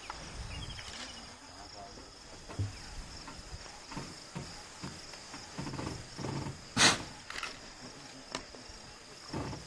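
Insects drone steadily at a high pitch, broken by several short sudden noises. The loudest is a sharp burst about seven seconds in.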